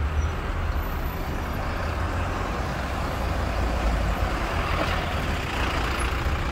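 Steady low rumble of a heavy truck engine running, with street traffic noise over it.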